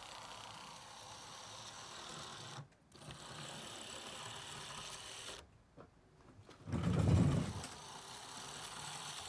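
The chassis of a 1993 Mantua F7 HO-scale locomotive, shell off, runs along the track with a steady faint motor-and-gear whir from its small can motor, breaking off briefly twice. It is running poorly, and its gearboxes are packed with old hardened grease. About seven seconds in, a low rumble lasting about a second is the loudest sound.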